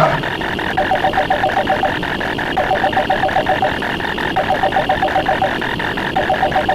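Stacked sound effects: a telephone-ring trill sounding in four bursts of about a second each, over a steady rapid ticking of about eight clicks a second.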